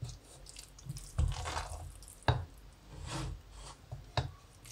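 Wooden spoon stirring and turning moist rice with peas and carrots in a stainless steel pot: soft wet squelching with a few sharp clicks of the spoon against the pot.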